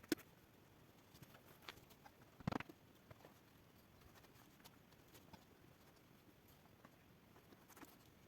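Near silence broken by a few scattered clicks and knocks, a sharp click right at the start and the loudest short cluster of knocks about two and a half seconds in.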